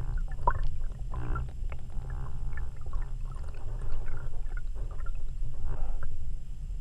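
Underwater noise: a steady low rumble with scattered clicks and short squeaks.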